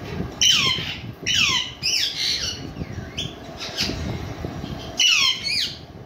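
Parakeets squawking: a run of loud, harsh calls, each falling in pitch, over the first four seconds, then another burst of calls about five seconds in.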